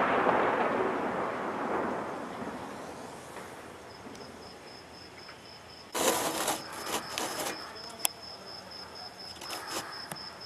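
The rumble of a shelling blast echoing and dying away over about four seconds, then crickets chirping steadily. A sudden loud crackling burst comes about six seconds in, with smaller ones near the end.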